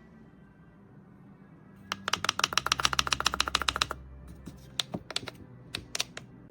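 Rapid sharp clicking, about ten clicks a second for some two seconds, then slowing to scattered single clicks over a faint low hum.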